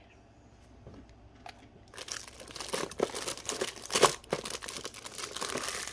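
Plastic packaging crinkling and crackling as it is handled, starting about two seconds in, with one sharper crackle partway through.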